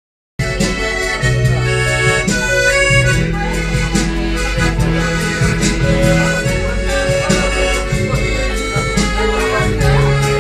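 Accordion-led music: a melody of held notes over a walking bass line and a steady beat.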